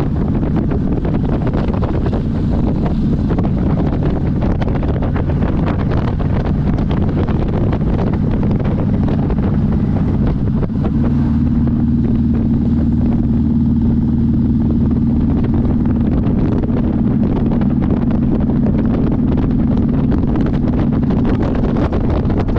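Motorcycle engine running steadily under way, heard from on board, with wind buffeting the microphone. About eleven seconds in there is a brief dip, after which the engine note holds steadier.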